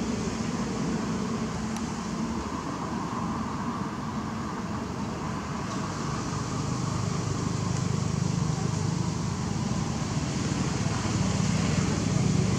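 A steady low drone like motor traffic, growing louder in the second half.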